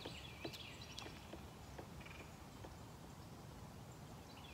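Faint bird chirps, a couple near the start and one about two seconds in, with a few light clicks in the first half over a quiet steady hiss.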